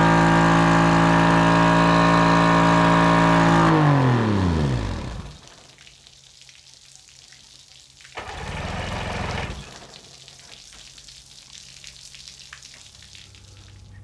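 Mercury 50 hp outboard motor idling steadily, then switched off about four seconds in, its pitch falling as it winds down to a stop. About eight seconds in there is a short hiss lasting about a second and a half.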